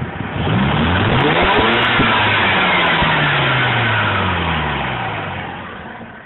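Mazda RX-8's twin-rotor Wankel rotary engine revving up quickly, then the revs falling slowly over the next few seconds. The owner calls the engine tone raspy and rough where it should be smooth.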